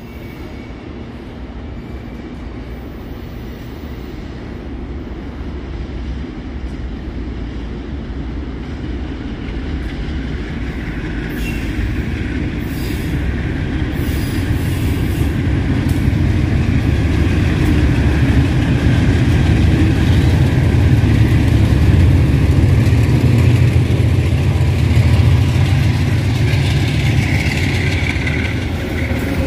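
A consist of MRS diesel-electric freight locomotives running light, their engines' deep rumble growing steadily louder as they approach and pass close by, with some wheel squeal near the end.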